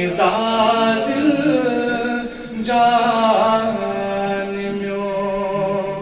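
A man chanting a naat, a devotional poem in praise of the Prophet Muhammad, unaccompanied. He draws out long held notes with slow slides in pitch, amplified through a microphone and PA.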